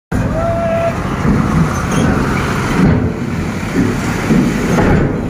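Bus engine running with a loud, low rumble as the bus rolls slowly off a ferry's steel ramp, with people's voices close by.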